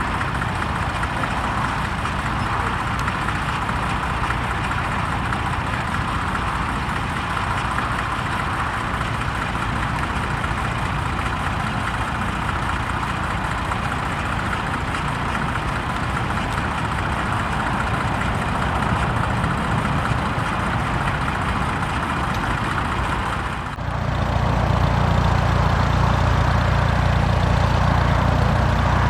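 Engine running steadily; about 24 s in it changes abruptly to a louder, deeper engine sound.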